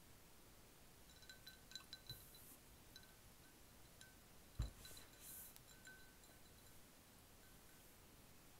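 Ice cubes clinking in a glass of iced drink, a few light glassy clinks with short ringing tones. About halfway through comes a single soft knock as the glass is set down on the table, followed by a little faint ringing.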